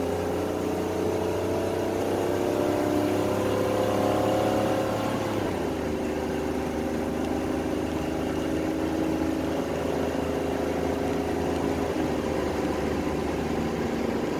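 Chevrolet Celebrity's 2.8 L V6 pulling under acceleration on the highway, its note climbing steadily, then dropping in pitch about five and a half seconds in and changing again near the end.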